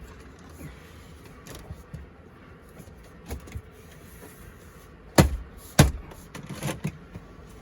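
A few sharp clicks and knocks over a faint steady background: two small ones about three seconds in, then two louder ones around five and six seconds, and a lighter one near seven.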